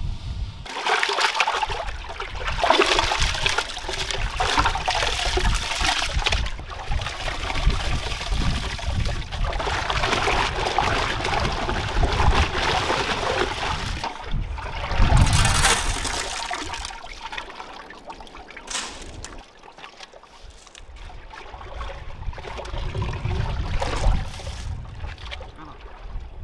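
Dry rice pouring from a jute sack into a large aluminium pot, then water splashing and sloshing as the rice is washed by hand in the pot.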